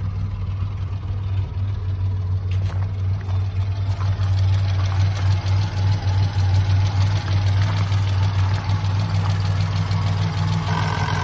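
Citroën SM's carburetted Maserati V6 idling with a steady, even low hum. It is running smoothly, the sign of a well-tuned engine.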